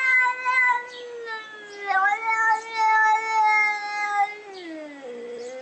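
Domestic cat yowling in long drawn-out calls, the pitch sliding down near the end.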